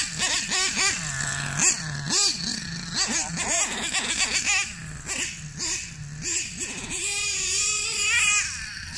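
Hobao Hyper 30 Turbo nitro engine of an RC monster truck revving in short bursts, its pitch rising sharply and dropping back to a low idle again and again, then held at a higher pitch for about a second and a half near the end. The engine runs unevenly and bogs, which the owner puts down to tuning that is still needed.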